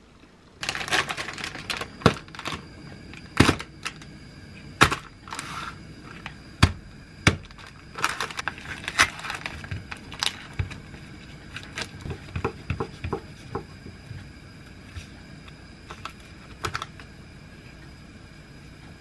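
Plastic food packaging being handled: crinkling plastic film peeled from a plastic meat tray, with sharp taps and clicks. Lighter clicks follow near the end as metal tongs move pieces of raw beef.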